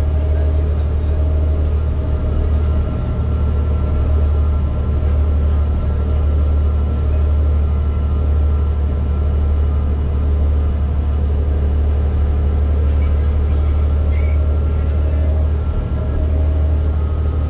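Interior cabin noise of a 2012 New Flyer D40LFR diesel transit bus under way: the Cummins ISL9 engine and driveline give a steady low drone, mixed with tyre and road noise. A faint steady whine sits above it.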